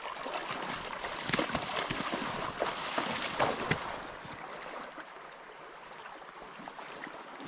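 Water splashing in a shallow, grassy creek: a run of irregular splashes and knocks over the first few seconds, then a quieter steady wash of flowing water.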